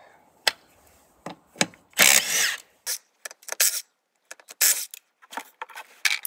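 A cordless power tool with a 17 mm socket spinning off the ATV's wheel nuts in a short burst about two seconds in, its motor pitch rising and falling, amid short clicks and knocks.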